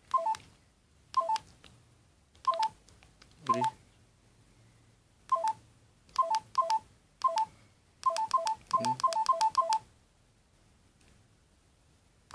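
LG GS101 mobile phone keypad tones: one short two-note beep for each press of the navigation key while stepping through the settings menu. The beeps come singly at first, then in a quick run of about eight presses around eight to ten seconds in.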